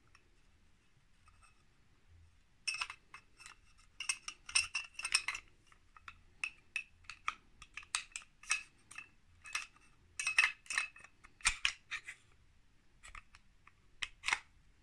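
Metal slide of a Retay G17 blank pistol being worked back onto its polymer frame by hand: a run of irregular light clicks, scrapes and rattles, starting about two and a half seconds in.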